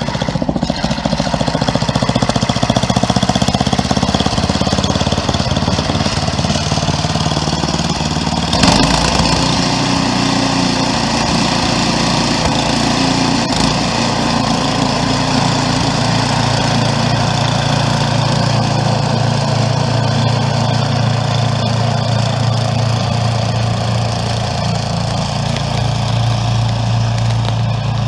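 Craftsman 11/30 snowblower engine running steadily while it blows snow on a new auger belt. About eight seconds in the sound changes suddenly, with a steady hiss added over the engine.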